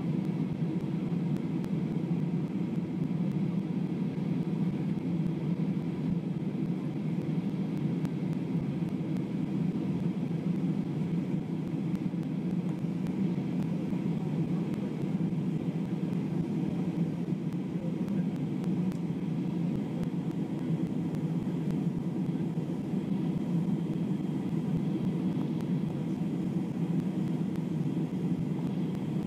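Steady cabin noise of an Airbus A320 climbing after takeoff: engine and airflow drone heard from inside the cabin, an even low rumble, with a faint high whine coming in near the end.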